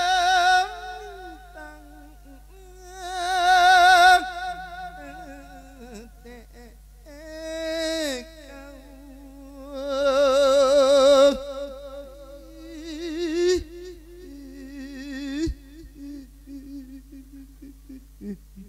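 A Thai monk singing a funeral lae into a microphone, wordless drawn-out vowels with a heavy vibrato and sliding pitch, in five or six long phrases with short pauses between. It is the chant that sends off the spirit of the dead.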